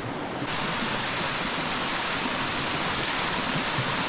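Steady rushing of a waterfall in full flow after rain, a continuous wash of falling water that steps up slightly in level about half a second in.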